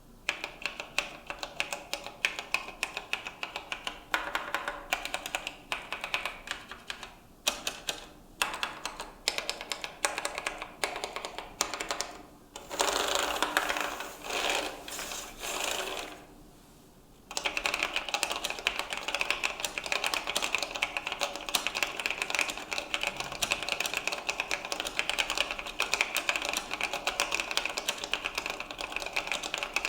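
Typing on a Leading Edge Wal1 keyboard with Oak Full-Travel Membrane switches, a stream of soft key clicks. A denser, louder run of fast keystrokes comes near the middle, then a brief lull, then steady fast typing.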